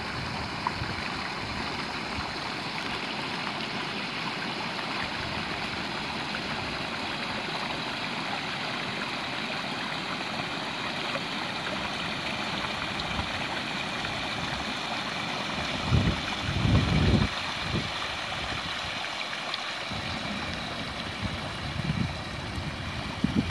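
Shallow river babbling over a stony bed, a steady rush of water. Brief low rumbles break in about two-thirds of the way through and again near the end.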